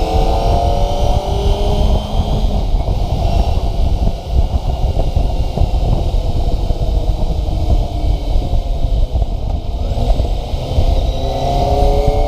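Kawasaki ZX-25RR's 249 cc inline-four engine accelerating, its pitch rising in the first couple of seconds. The engine then settles into a steadier stretch under heavy wind rumble on the microphone, and it climbs in pitch again near the end.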